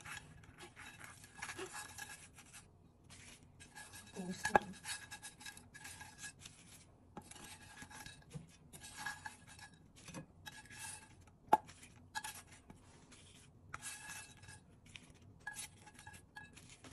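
Quiet intermittent scraping and clinking of a utensil against a frying pan and plate as pieces of fried chicken are lifted out and laid on salad, with two sharp clinks, about four seconds in and again about eleven seconds in.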